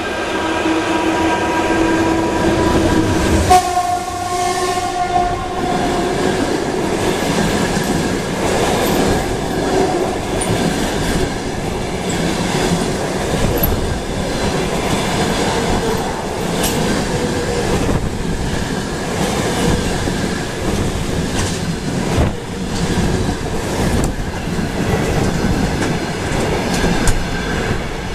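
EP1M electric locomotive sounding its horn as it approaches, with the pitch changing about three seconds in and the horn ending around six seconds. Then its passenger carriages rush past close by, their wheels clattering over the rail joints.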